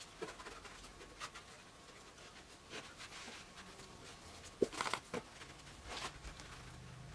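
Microfiber towel wiping a cross-drilled brake disc and wheel hub by hand: faint, irregular rubbing and rustling, with a short cluster of sharper scuffs about five seconds in.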